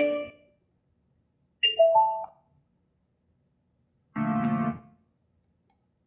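Car radio playing short snatches of keyboard music: three brief bursts, each cut off abruptly, with dead silence between them.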